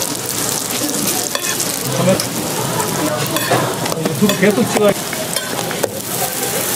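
Hotteok, sweet yeast-dough pancakes, frying in oil on a flat griddle with a steady sizzle. A metal hotteok press clicks and scrapes against the griddle several times as the dough is pressed flat.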